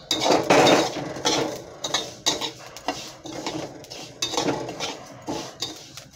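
Flat steel spatula stirring and scraping sesame seeds as they roast in a steel kadhai. The seeds rattle against the metal in repeated strokes, two to three a second, and the first stroke is the loudest.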